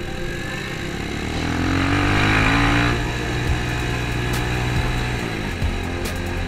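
Motorcycle engine running on the move. The revs climb about a second in and then hold, with a brief rushing noise around two seconds in. The revs drop back a little past five seconds.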